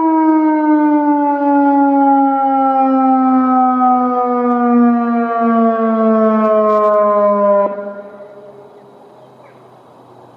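Federal Signal Modulator 6024 electronic warning siren winding down at the end of its all-clear tone: a steady tone with many overtones glides slowly down in pitch, then cuts off suddenly about three-quarters of the way through, leaving only faint outdoor background.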